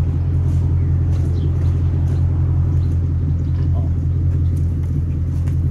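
Jaguar XK8's V8 engine idling steadily, a low, even rumble.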